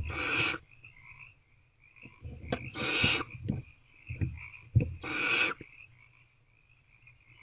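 Barn owl owlets giving their hissing begging calls, three rasping hisses about two and a half seconds apart, with soft knocks and scuffs of movement in the nest box between them.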